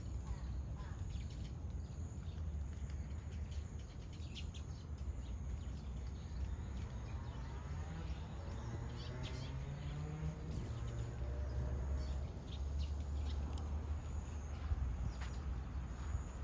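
Outdoor ambience: scattered short bird chirps over a steady low rumble, with a faint hum that rises in pitch for a few seconds past the middle.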